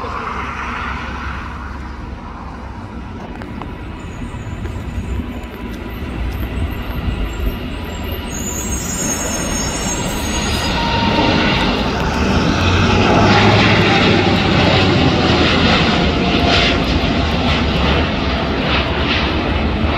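Jet takeoff noise from a four-engine Boeing 747 at full takeoff thrust. It builds through the first half, is loudest a few seconds after liftoff and stays strong as the jet climbs away.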